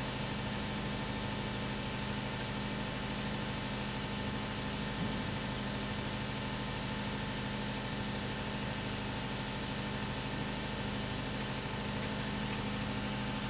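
An engine idling with a steady, even hum.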